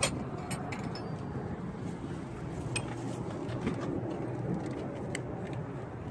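Scattered metallic clinks of hand tools, sockets being picked through and knocked together, several in quick succession at the start, then a few single clicks, over a low steady background noise.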